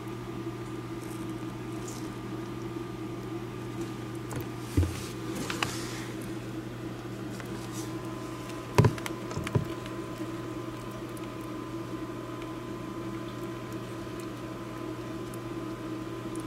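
A steady machine hum with a few light knocks and clicks, the loudest about nine seconds in.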